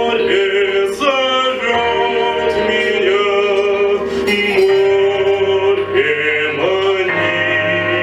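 Male classical (academic-style) voice singing sustained, wavering notes with pitch slides, over a steady instrumental accompaniment.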